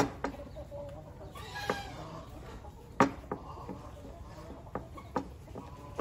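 Chopsticks clinking against a ceramic bowl as flour-and-water batter is stirred, in a series of irregular sharp clicks, the loudest at the start and about three seconds in. A chicken clucks briefly about a second and a half in.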